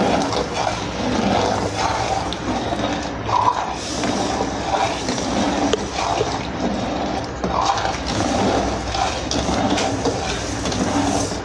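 Thick milk kheer with sago and bottle gourd being stirred in a pot, a steady liquid sloshing and squelching with a few light clicks, as the sugar just added is stirred in.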